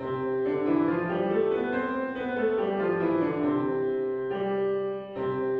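Piano playing a major scale, stepping up and back down, then closing on two sustained chords that ring out and fade.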